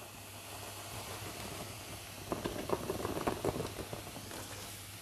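A hot stone pot sizzles softly as coarse ground coconut masala is tipped in from a banana leaf. About halfway through comes a cluster of crackling and pattering as the masala lands on the onions and taro-leaf bundles.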